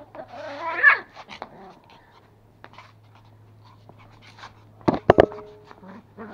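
Pomeranian puppies whining and yipping while they tug and bite at a rope toy, loudest about five seconds in.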